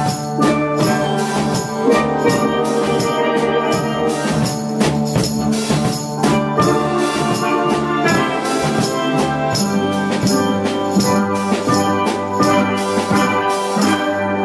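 Steel pan ensemble playing a tune, many ringing pan notes over a steady beat from a drum kit and a tambourine.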